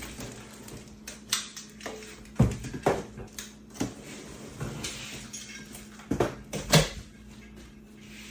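Microwave's cardboard shipping box being opened and handled by hand: cardboard rustling and scraping, with about five sharp knocks and clatters.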